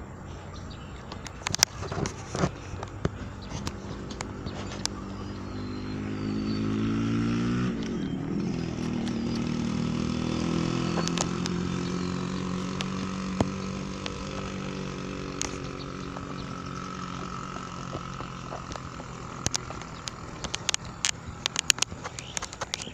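A motor vehicle's engine passing by: it grows louder as its pitch rises, drops in pitch about eight seconds in as it goes past, then fades away. Scattered light clicks and taps sound around it.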